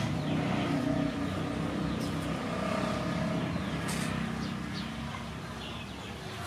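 A steady low engine hum, like a motor vehicle running, easing off slightly in the second half.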